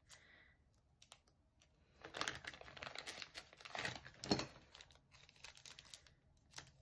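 Faint crinkling and small clicks of sunglasses packaging being unwrapped by hand, in a busy run of short crackles through the middle few seconds.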